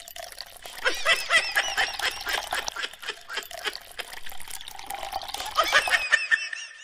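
Water splashing and pouring at a hand pump being worked, with many quick high chirps running through it.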